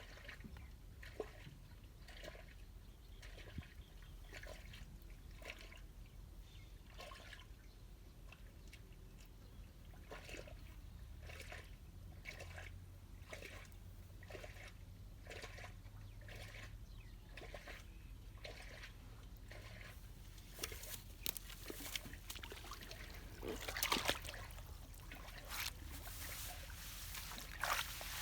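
Water trickling and splashing, with many small irregular splashes that grow busier and louder near the end.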